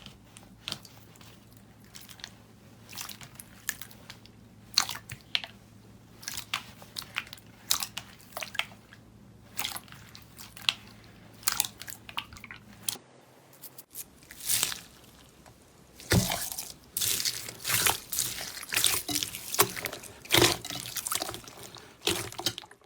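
Slime being squeezed and pressed by hand, making many small crackles, pops and squishes. The crackling comes thicker and louder in the second half, and a faint low hum underneath stops about halfway through.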